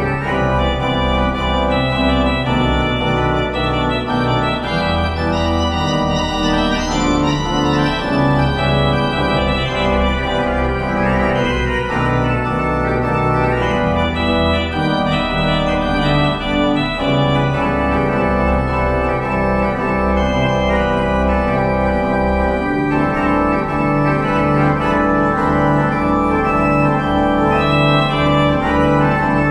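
Organ music: slow, sustained chords over long-held bass notes, the harmony changing every few seconds.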